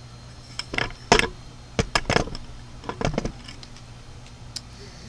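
Dishes and cookware clattering as food is served into a small bowl: sharp knocks and clinks in three short clusters, about one, two and three seconds in.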